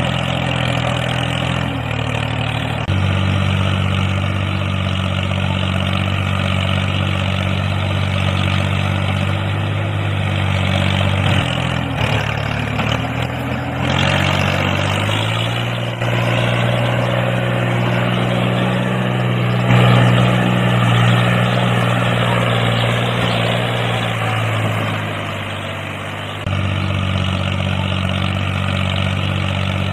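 A tractor engine running steadily at low revs. Its note changes abruptly a few times and rises a little partway through.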